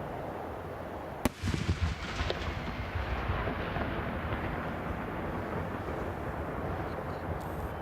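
A firework shell bursting with one sharp bang about a second in, followed by a second or so of crackling pops, over steady background noise.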